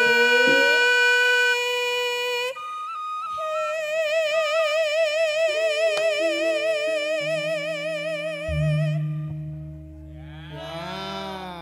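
A Javanese sinden singing long held notes with a wide, even vibrato over steady low sustained accompaniment. Near the end the singing stops and a sliding tone bends up and falls away.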